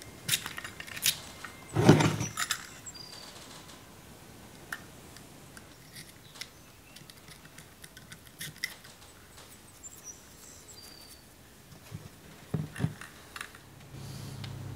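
Small workbench handling sounds: blue masking tape being worked and trimmed on a small metal lathe part, with light clicks and taps of the part and tools on a plywood bench, and one louder knock about two seconds in. A low steady hum comes in near the end.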